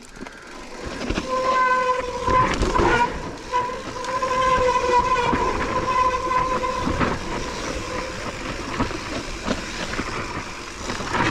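Mountain bike rolling down a dirt trail: a steady high buzzing whine from the coasting rear hub, with knocks and rattles from bumps in the trail. The whine fades out about 8 seconds in.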